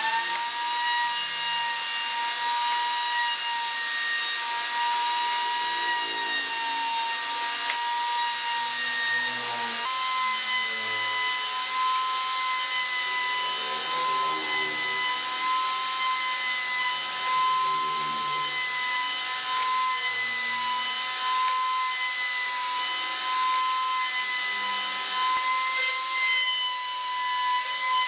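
Table-mounted wood router running at speed with a steady high whine, its bit cutting into wood as the workpiece is fed past it. The whine steps up slightly in pitch about ten seconds in.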